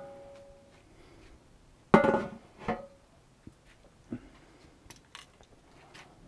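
Metal roasting pan lid set down with a single loud, ringing clang about two seconds in, followed by a softer knock. Then a few light clicks of metal tongs against the pan.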